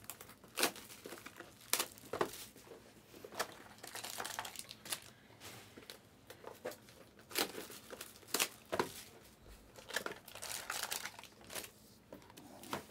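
Foil-wrapped trading card packs crinkling as they are handled and opened, in a run of scattered sharp crackles.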